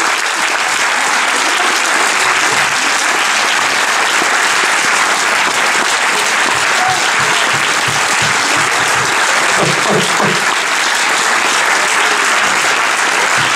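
A cinema audience applauding steadily, a dense, even clapping that keeps up without letting off.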